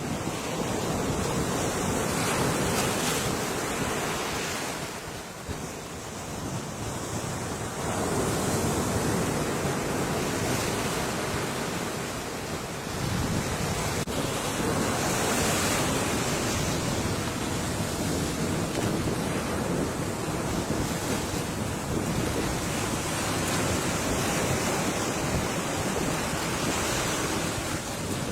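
Ocean surf: waves breaking continuously on the shore, the wash rising and falling as each set comes in, with brief lulls about five and twelve seconds in.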